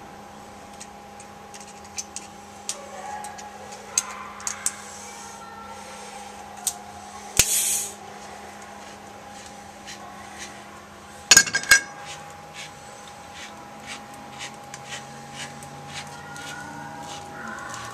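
Hand tools clinking, scraping and knocking on metal during work on a refrigeration suction-line drier. Scattered sharp clicks run over a steady hum, with a short hiss about seven seconds in and a loud clatter about eleven seconds in.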